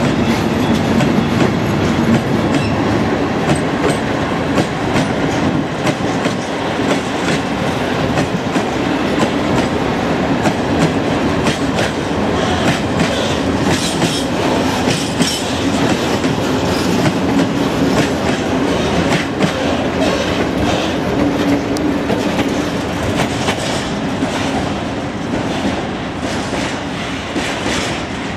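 Freight train of tank wagons rolling past close by: a steady rumble with the wheels clacking over the rail joints.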